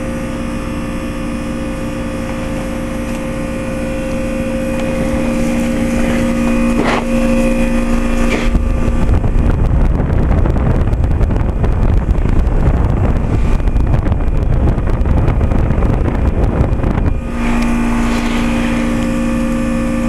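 2011 Trane XL20i heat pump outdoor unit with dual reciprocating compressors running in heat mode, a steady compressor hum. From about 8 seconds in to about 17 seconds, a loud rumble of the fan's discharge air buffeting the microphone covers the hum, then the hum returns.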